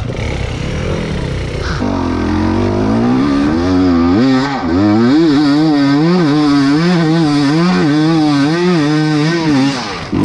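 KTM EXC 300 two-stroke dirt bike engine revving hard under load on a steep climb, its pitch rising and falling about twice a second. The engine note cuts off suddenly near the end.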